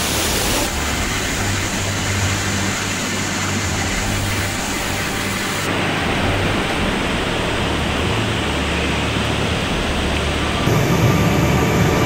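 Rushing floodwater: a loud, steady noisy roar. It changes abruptly three times, about a second in, halfway through and near the end. After the last change it gets louder and deeper.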